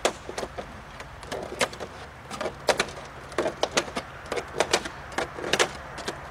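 Vinyl corner molding clicking and snapping as a siding removal tool pushes its overlapping J-hooks together so they pop into place. There are irregular sharp clicks, more frequent and louder in the second half.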